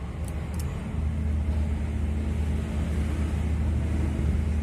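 A machine running off-screen gives a steady low hum that gets louder about a second in. Two light clicks come near the start.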